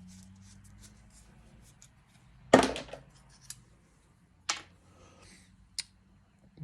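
A razor scraper being taken apart by hand to get the blade out: a run of small sharp clicks and knocks, with one louder knock about two and a half seconds in.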